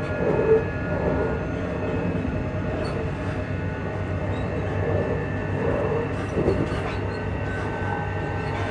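Traction motors of a Class 334 electric multiple unit humming steadily over the rumble of the train running, with a few thin steady tones above.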